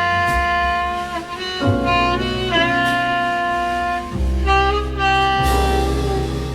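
Old-time big-band jazz recording: a lead instrument holds long melody notes over a bass line that changes note every second or two, with a few light cymbal-like strokes.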